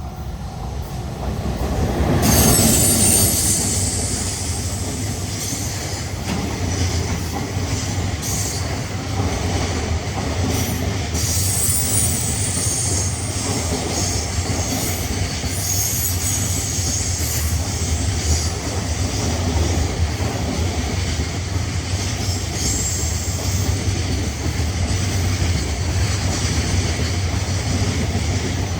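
Freight train passing close: the EF210 electric locomotive swells to its loudest about two seconds in, then the container wagons roll by in a steady rumble with clicks of wheels over rail joints and a high squeal from the wheels.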